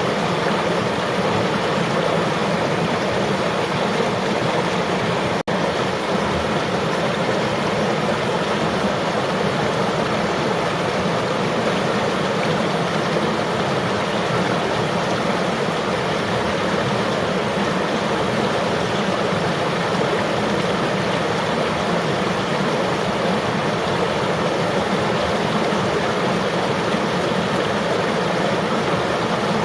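River water flowing and rushing steadily, an even continuous wash of sound, with a split-second dropout about five seconds in.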